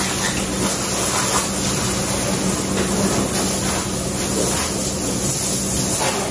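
Water spraying from a garden hose onto a car's body: a steady hiss and splatter, over a steady low hum.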